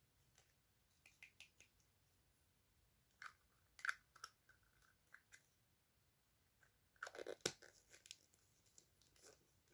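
Faint scattered clicks and crackles of a small plastic toy being handled in the fingers, with a brief cluster of louder crackling about seven seconds in.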